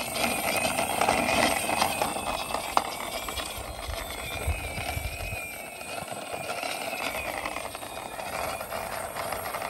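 Plastic wheels of a toy Lightning McQueen car rolling and scraping along rough concrete as it is pushed by hand, a steady gritty rattle with one sharp tick about three seconds in.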